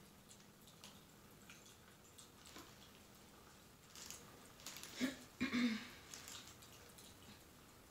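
Faint crackling of a fireplace, with small scattered pops. About five seconds in there is a brief louder rustle of movement close to the microphone.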